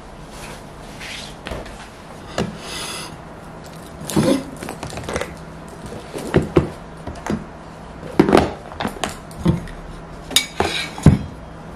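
Plastic lunch containers and an insulated drink bottle being handled and packed into a canvas lunch bag: a string of irregular knocks and clunks, about half a dozen, with rustling of the bag.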